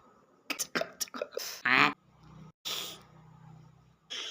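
Vocal cartoon sound effects made with the mouth, beatbox-style: a quick run of clicks and pops, then a loud warbling squawk, a short hiss and a faint low buzz.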